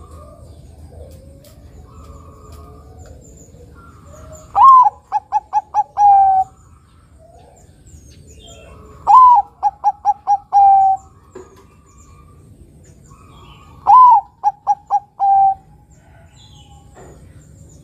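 A Bangkok-local crossbred zebra dove cooing: three song phrases about five seconds apart. Each is an opening note that rises and falls, a quick run of about five short notes, and a longer, slightly lower closing note.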